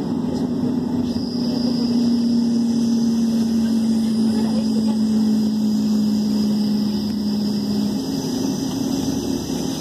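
Passenger train running, heard from inside the carriage: a steady rumble of rolling noise with a droning hum that sinks slowly in pitch and stops about eight seconds in, and a faint high whine above it.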